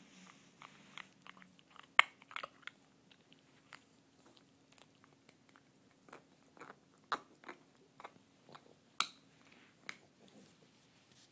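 English bulldog puppy chewing and biting on a plastic bottle cap: irregular clicks and crunches of teeth on plastic, with the sharpest snaps about two seconds in and about nine seconds in.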